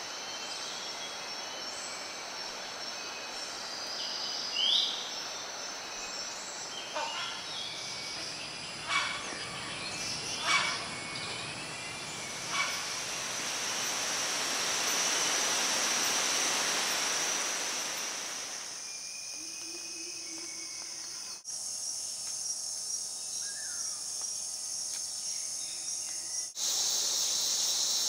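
Bornean rainforest ambience: a steady high-pitched insect drone with scattered short bird calls. The mix changes abruptly a few times.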